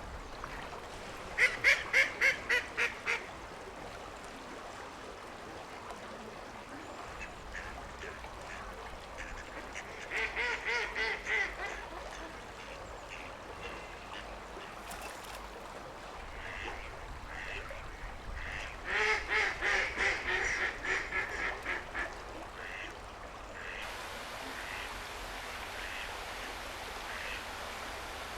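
A duck quacking in three rapid runs of calls, about four or five quacks a second, with long pauses between; the last run is the longest and loudest. Steady background hiss throughout.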